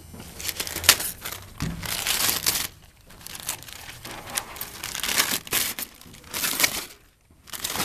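Wrapping paper being torn and crumpled by hand as it is stripped off a pickup truck's body, in irregular rushes with short pauses.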